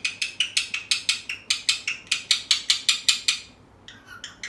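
A parrot making a fast, even run of sharp clicks, about six a second, that stops abruptly a little over three seconds in.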